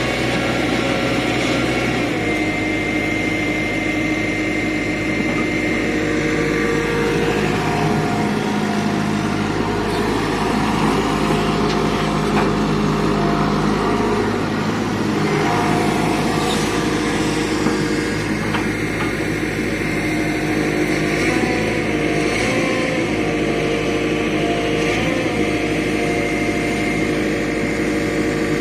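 Tata Hitachi 120H excavator's diesel engine running steadily while loading soil, its pitch dipping and recovering briefly a few times under load, with a few faint knocks.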